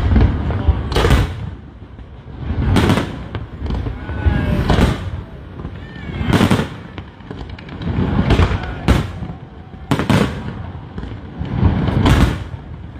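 Aerial fireworks shells bursting, a loud bang every one to two seconds, each followed by a low rumbling echo.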